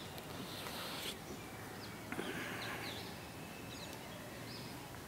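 Birds chirping in the garden trees: short, high calls scattered through, over a faint steady outdoor background.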